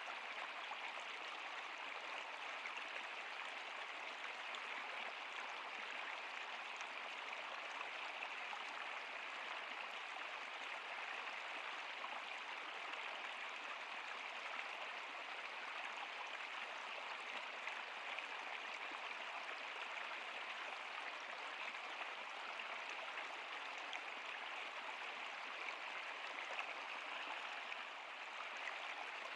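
Stream or small river flowing: a steady rush and babble of running water.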